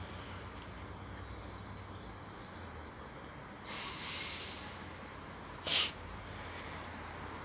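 Two short breathy noises close to the microphone over a quiet outdoor background: a soft hiss about four seconds in, then a sharper, louder puff of breath near six seconds.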